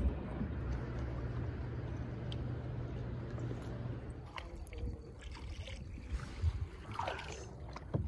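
Water sounds around a kayak on a river: a steady low rumble for about the first four seconds, then quieter lapping with light splashes and clicks.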